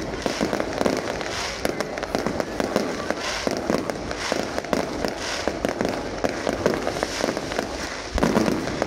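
Fireworks display: a dense, continuous run of bangs and crackling from bursting aerial shells, growing louder near the end.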